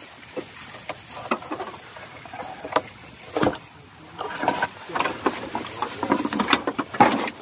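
Scattered knocks and taps of footsteps on wooden planks.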